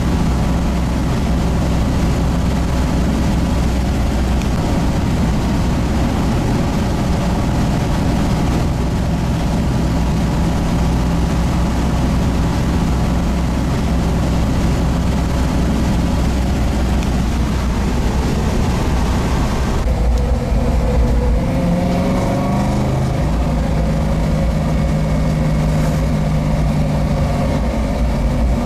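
1967 Ford Mustang Shelby GT500 'Eleanor' V8 engine held at high, steady revs while the car spins its rear tyres in donuts and a burnout. About two-thirds through, the note changes, rising in pitch and then holding again.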